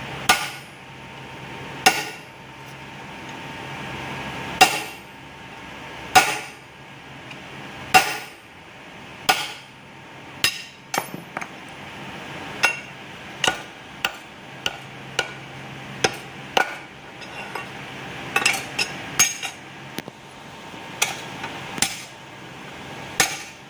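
Hammer blows on a steel cold chisel held against a flat steel bar, each strike a sharp metallic clank with a short ring. The blows are spaced a second or two apart at first, then come quicker and in small clusters in the second half.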